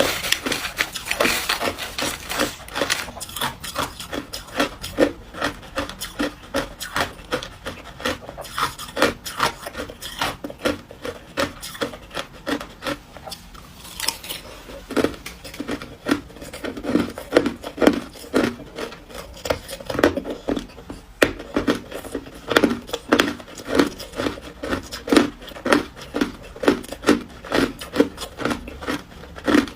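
Ice being chewed: a steady run of crisp crunches, about two or three a second.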